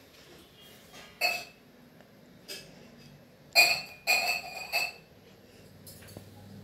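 Stainless-steel tumbler and utensils clinking as they are set down among other steel dishes. There is one clink a little over a second in, then a lighter tap, then three louder ringing clinks close together around the middle.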